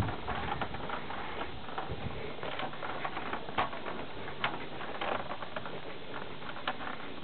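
Waveboard's small caster wheels rolling over rough asphalt, a steady rolling noise with a few sharp clicks scattered through it.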